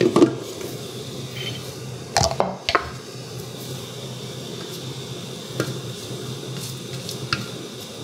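The lid of a Chef Robot cooking food processor lifted off its stainless steel mixing bowl, with a few clunks about two seconds in. Then a silicone spatula scrapes the sides of the bowl with faint ticks, over a low steady hum.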